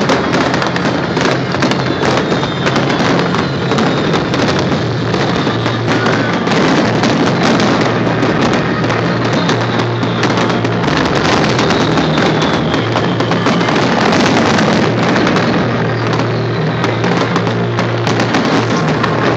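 A fireworks barrage: many shells bursting and crackling in quick succession, loud and continuous. Music is also playing underneath.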